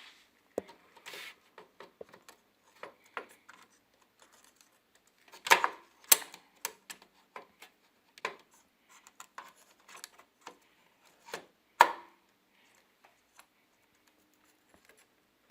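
A RAM stick being turned and pushed into a motherboard memory slot, making a run of irregular sharp clicks and taps. The loudest knocks come at about five and a half, six and twelve seconds in.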